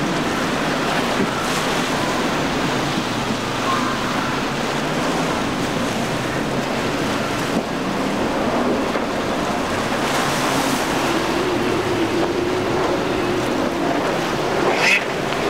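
Outboard engines running a center-console boat at speed through choppy inlet water, under the steady rush of waves and spray with wind on the microphone. A brief sharper burst comes near the end.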